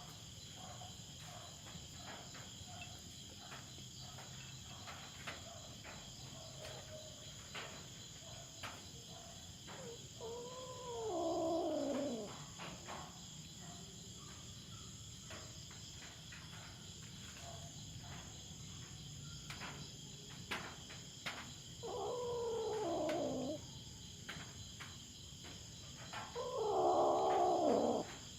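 A cat yowling in three long, drawn-out calls, each bending up and then falling in pitch: the second about halfway through and the last near the end, the loudest. Crickets chirr steadily behind it.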